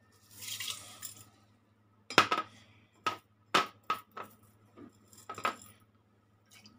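Small red beans pour from a bowl into a stainless steel pot of water in a short rushing patter. Several sharp clinks of dishware follow, spaced out over the next few seconds.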